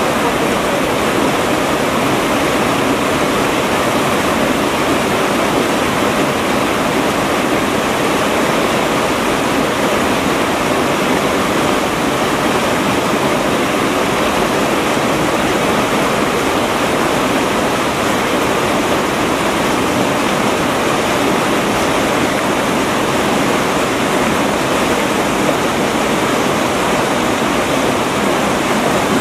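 Whitewater river rapids rushing over and around boulders: a loud, steady rush of water that holds even throughout.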